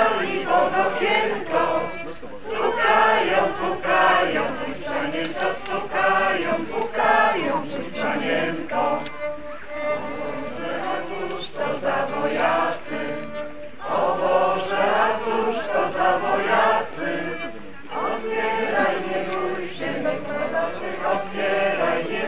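A small group of people singing a song together, many voices in phrases with short breaths between them.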